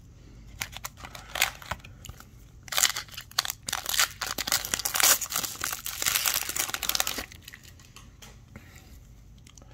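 Foil wrapper of a trading-card pack being torn open and crinkled in the hands, crackling in irregular bursts and stopping about seven seconds in.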